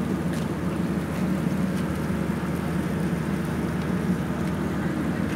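River car ferry's engine running steadily under way, a low even drone.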